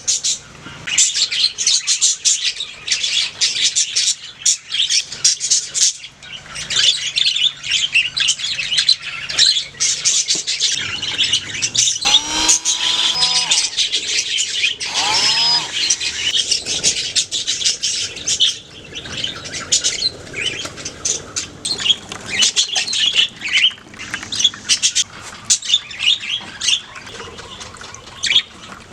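A colony of budgerigars chattering: many rapid, overlapping high chirps and warbles, with a couple of lower gliding notes about halfway through.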